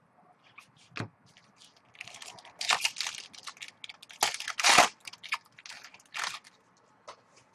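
Shiny wrapper of a Topps Chrome football card pack torn open and crinkled by hand in several bursts, the loudest about two-thirds of the way through, with a couple of short clicks near the start.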